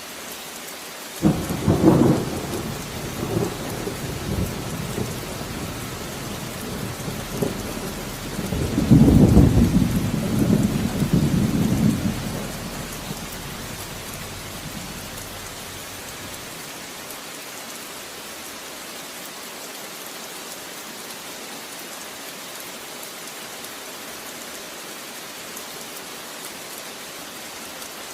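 Steady rain with thunder: a sudden clap about a second in, then rumbling that swells again near the middle and dies away, with the rain going on throughout.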